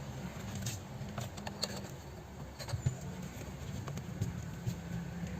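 Steady low electrical hum with scattered small clicks and taps of handling tools on a workbench.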